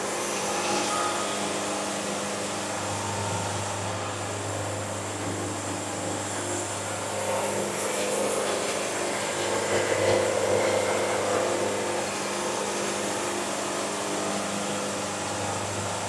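Band sawmill running steadily as its blade saws through a walnut log, a constant machine hum with the noise of the cut.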